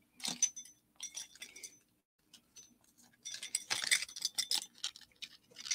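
Metal fashion earrings clinking and rattling as they are handled, a scatter of light clinks with a busier run about three to five seconds in.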